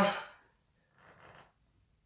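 The tail of a man's spoken phrase, then near silence with one faint, short breathy noise about a second in.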